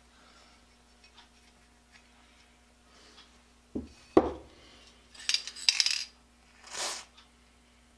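Metal parts of a three-jaw lathe chuck handled on a bench: two sharp knocks about four seconds in, then a run of clinks and rattling, and a short hiss near the end as dry-film lubricant is sprayed from an aerosol can.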